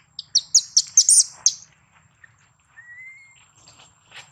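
Infant long-tailed macaque giving a quick run of short, high-pitched squeaking calls, then a single short rising whistle-like call about three seconds in.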